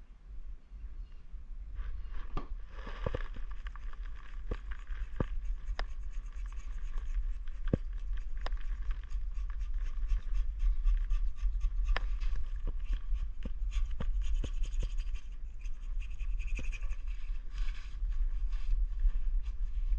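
Scraping and rubbing on the water-pump mating surface of a Mercury Optimax outboard's lower unit as it is cleaned up by hand, starting about two seconds in, with many small sharp clicks throughout. A steady low rumble runs underneath.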